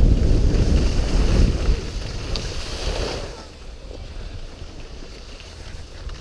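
Wind rumbling on the action camera's microphone and skis sliding and scraping over packed snow during a downhill run. The noise is loud at first, drops markedly about three and a half seconds in, and picks up again at the end.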